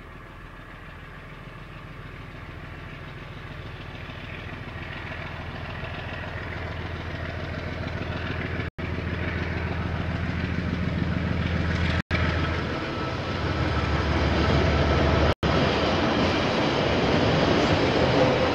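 KiwiRail diesel train approaching: its engine hum and rail noise grow steadily louder, and the engine note drops lower about two-thirds of the way through. The sound cuts out for an instant three times.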